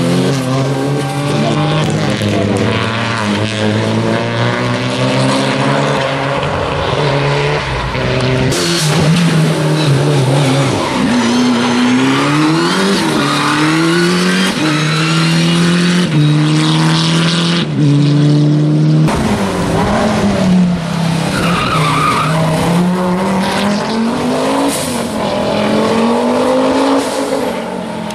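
Rally car engines revving hard on a special stage. The engine note climbs and drops over and over with gear changes and throttle lifts. The sound breaks off abruptly twice, about a third and two thirds of the way through, and another run starts.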